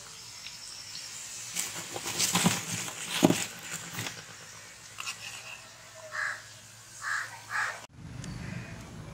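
Crows cawing outdoors, three short harsh caws in the second half. They follow a handful of sharp knocks and clicks in the first half.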